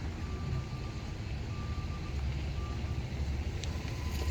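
A vehicle's reversing alarm beeping in a high steady tone that breaks off and resumes a few times, over a low steady rumble.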